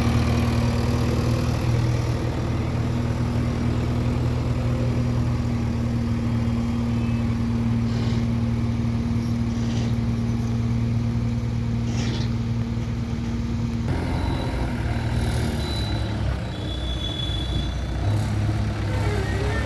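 Diesel engine of a JCB 3DX backhoe loader running steadily, with three short hisses about two seconds apart near the middle. About two-thirds of the way through, the engine sound changes abruptly.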